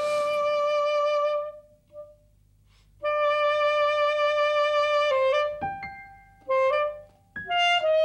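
Music: a single wind instrument playing slow, long held notes, with a brief silence about two seconds in and short pauses between notes near the end.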